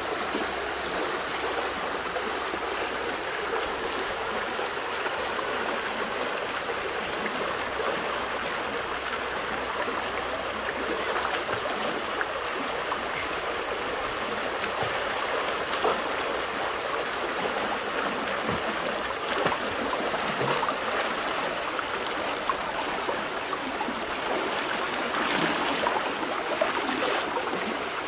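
River water rushing steadily over a small riffle. Near the end, a few louder splashes as someone wades through the shallow water.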